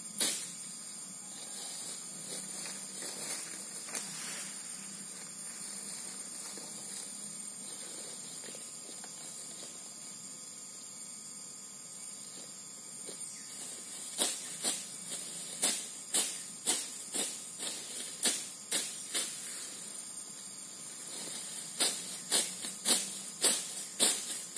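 Sickle strokes slicing through grass as it is cut by hand for fodder, heard as sharp swishing cuts. After a few scattered cuts, they come about two a second from a little past halfway and grow thicker near the end, over a steady high hiss.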